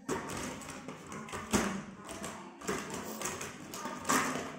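Four sharp taps or knocks about a second apart, the loudest about one and a half seconds in, over a low rustle of handling noise.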